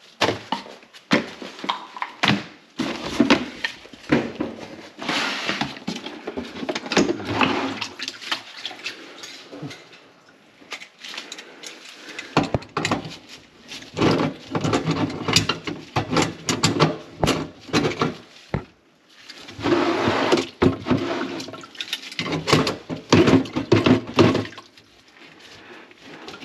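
Water gurgling and splashing in a clogged kitchen sink in irregular bursts, mixed with sharp knocks and quieter gaps between bouts.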